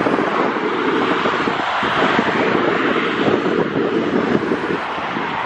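Bombardier Dash 8 Q400 turboprop engines and propellers running steadily as the aircraft flies in low over the runway to land, with gusts of wind buffeting the microphone.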